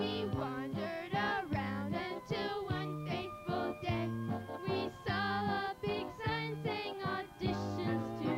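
A number from a children's stage musical: young voices singing over an instrumental backing, with a bass line bouncing between a few notes.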